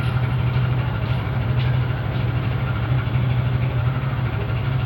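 A motor engine running steadily at a constant low drone.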